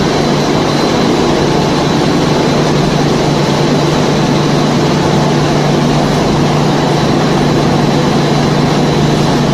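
Snack pellet production line machinery running: a steady mechanical din with a constant low hum and a thin high whine over it.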